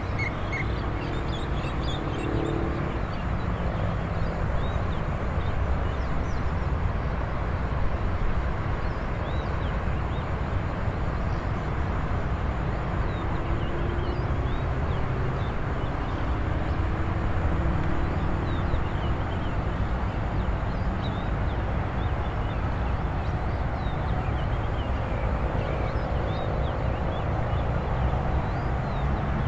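Rural dawn ambience: a steady low background rumble with small birds chirping faintly and sparsely over it, and a short repeated bird trill right at the start.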